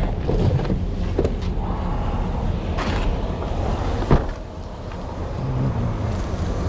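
A vehicle engine idling steadily with a low rumble, with a few short clicks and clanks and one sharp knock about four seconds in.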